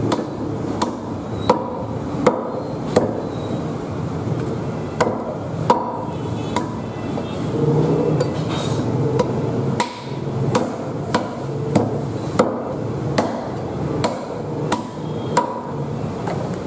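Cleaver chopping through softshell turtle pieces on a thick round wooden chopping block: a run of sharp chops, roughly one a second, with a short pause about three seconds in.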